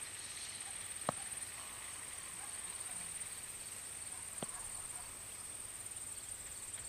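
Faint outdoor ambience dominated by a steady high-pitched trill, with two sharp clicks, one about a second in and one about four and a half seconds in.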